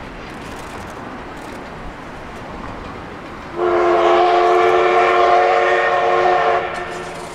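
Steam whistle of the D51 498 steam locomotive blowing one long blast of about three seconds, starting about halfway through, over the steady noise of the passing train.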